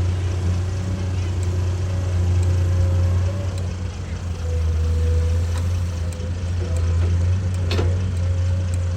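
Komatsu PC210 excavator's diesel engine running steadily under digging load, with a thin hydraulic whine over the low engine hum. It eases off briefly about four seconds in, and there is one sharp knock near the end.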